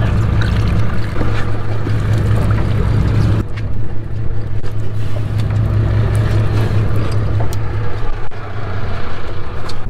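Sportfishing boat's engine running with a steady low drone, heard on deck under a hiss of wind and water.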